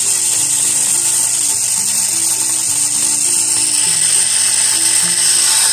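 Small electric motor of a battery-powered TrackMaster Hugo toy train whirring with a steady high-pitched whine as it runs along plastic track, over background music with a simple stepped melody.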